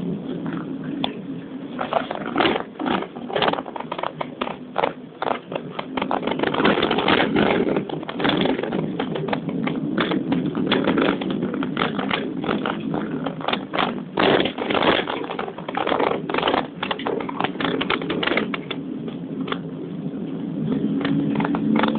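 Car cabin noise while driving down a winding mountain road, with frequent irregular clicks and rattles over the steady rumble.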